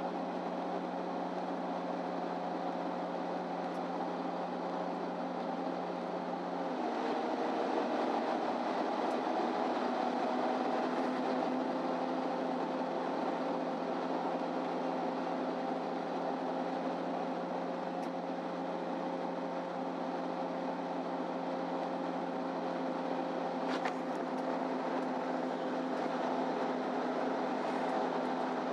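MAN Lion's City Ü city bus driving, heard from inside the passenger cabin: a steady engine and drivetrain drone with a humming tone that dips and shifts about seven seconds in, then settles and runs on a little louder. A faint click near the end.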